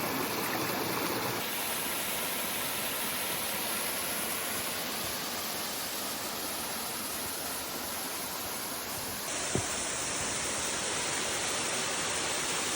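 Creek water rushing over rocks in small cascades, a steady hiss. A single short click about nine and a half seconds in.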